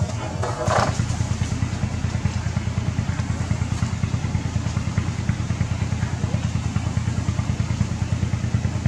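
A small engine idling nearby: a steady, low, fast-pulsing throb. A short higher-pitched sound breaks in just under a second in.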